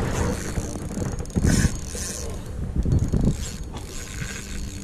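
Spinning reel cranked under heavy load by a fish, its gears and handle squeaking as line is winched back in.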